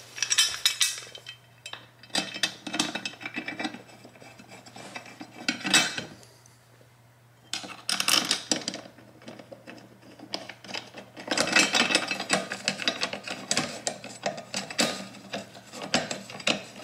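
Clinks, scrapes and rubbing as a thin, hand-bent aluminium bracket plate is handled and pressed against a motorcycle's rear frame and tail light for a test fit. The sounds come in irregular bouts, busiest in the second half.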